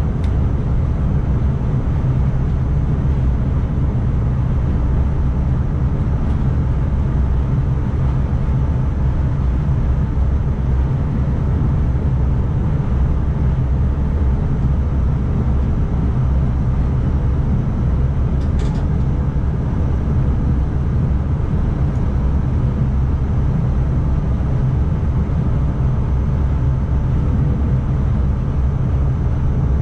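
NS ICMm electric multiple unit running at speed, a steady low rumble of wheels on rail and running gear heard from the driver's cab.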